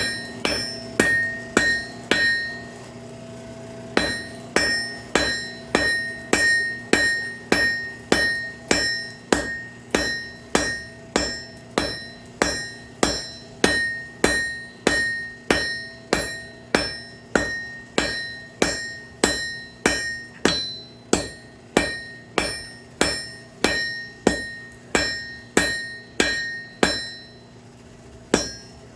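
Blacksmith's hand hammer striking a hot railroad spike on an anvil, forging it into a fork: about two ringing blows a second, with a short break of a second or so soon after the start.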